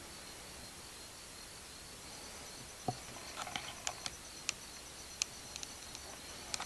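Insects chirping steadily in the background, a high, evenly pulsing trill. From about three seconds in come a series of sharp clicks and knocks, the first the loudest.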